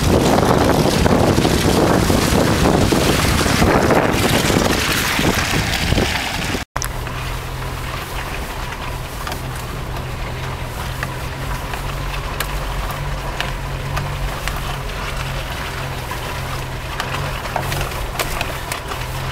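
Wind buffeting the microphone loudly over a vehicle for the first several seconds. After an abrupt cut, an off-road Jeep's engine runs steadily at low revs, a low even hum with faint scattered ticks.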